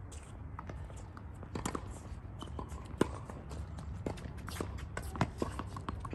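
Tennis rally on a hard court: sharp racket-on-ball strikes, the loudest about three seconds in and another about five seconds in, with scattered footsteps and shoe scuffs over a steady low rumble.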